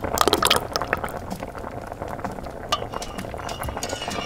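Cola poured into boiling liquid in a miniature steel pot: a loud splash and hiss in the first half-second, then steady crackling bubbling with a few light clicks of a tiny metal spoon.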